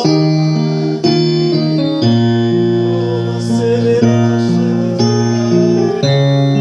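Slow worship music on keyboard: sustained chords that change about once a second.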